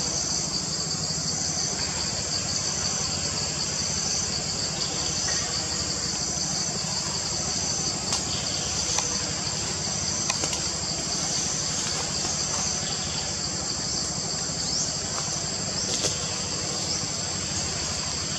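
Steady forest insect chorus: a continuous high buzz with a pulsing note repeating about once a second, over a low steady rumble, with a few brief clicks.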